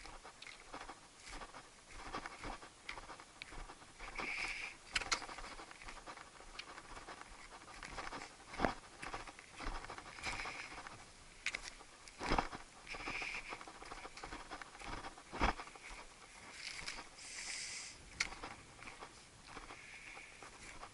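Footsteps of a hillwalker climbing steep rocky ground: boots scuffing and knocking on stones and heather at an irregular pace, with a few sharper knocks.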